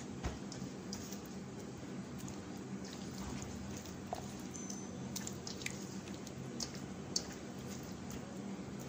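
Faint wet squelching and scattered small clicks of a hand working thick yogurt-and-spice marinade into a raw whole chicken in a stainless steel bowl, over a steady low hum.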